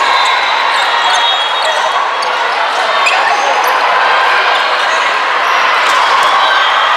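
Indoor volleyball rally in an echoing gym: a steady din of many voices from players and spectators, with a few sharp hits of the ball, about 3 and 6 seconds in, and short squeaks of shoes on the hardwood court.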